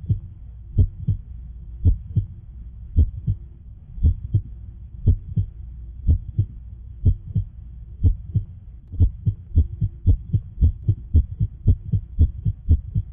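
Heartbeat sound effect: paired low thumps about once a second over a low hum, quickening toward the end.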